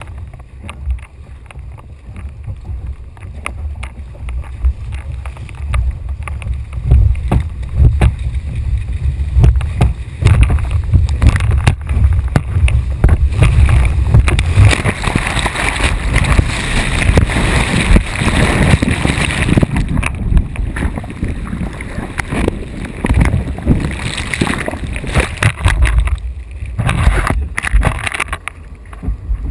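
Wind buffeting the microphone of a kayak-mounted camera, with water splashing around a surf kayak as it rides a breaking wave. The rush of whitewater swells about halfway through and falls away near the end.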